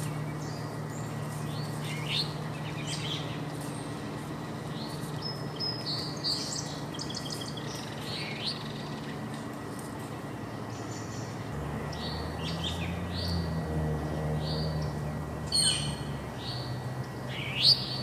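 Small songbirds chirping and calling on and off, with two louder, sharper calls near the end. A low steady hum runs underneath.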